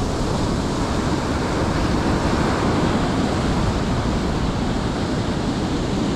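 Rough surf breaking and washing up the beach: a steady rush of waves that swells a little midway, with wind on the microphone.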